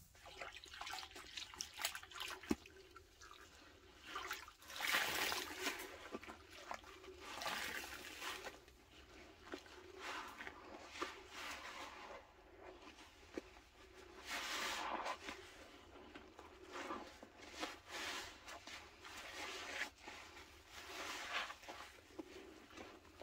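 Porous sponges soaked in sudsy pine cleaner squeezed by hand in a basin: wet squelching with liquid running and dripping. A squeeze comes every couple of seconds, the loudest about five and fifteen seconds in.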